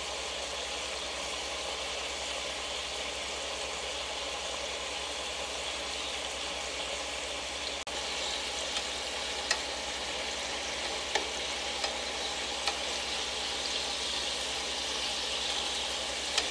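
Caramel soy sauce sizzling and bubbling in a nonstick pan around slices of king trumpet mushroom as it reduces. From about halfway on, a few light clicks of chopsticks against the pan.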